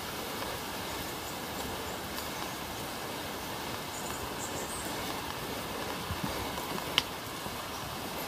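Steady outdoor background noise while walking a bush track. A few soft footfalls come near the end, along with a single sharp tap about seven seconds in.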